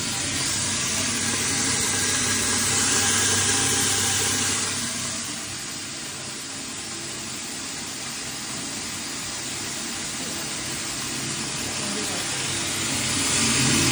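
Electric rice-granule grinding mill running while rice is fed into its hopper: a steady motor hum under a hiss of grain being milled. The hiss is heaviest for the first five seconds or so, then eases.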